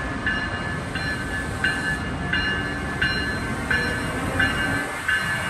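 Amtrak ACS-64 electric locomotive departing, its bell ringing steadily about once every 0.7 seconds over the low rumble of the locomotive rolling past.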